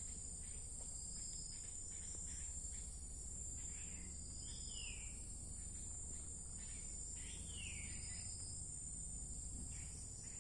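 Steady high-pitched chorus of forest insects. Twice, a short call slides down in pitch over it.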